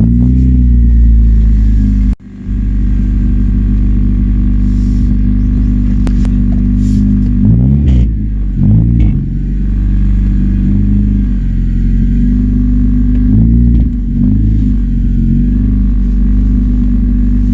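Honda Civic Si four-cylinder engine running with no exhaust system fitted, very loud and raw. It idles with a steady drone and is revved up and back down twice, once about eight seconds in and again around fourteen seconds.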